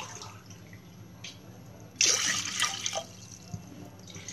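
Water poured from a glass into a metal pressure cooker: one splashing pour about two seconds in, lasting about a second, with a few faint drips before and after.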